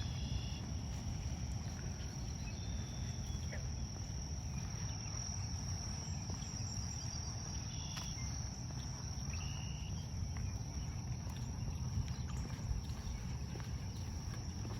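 Insects, likely crickets, keep up one steady high drone, with a few short bird chirps scattered through it over a low, steady rumble.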